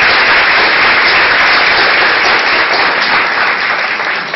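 Loud, dense applause from many people clapping at once, easing off slightly near the end.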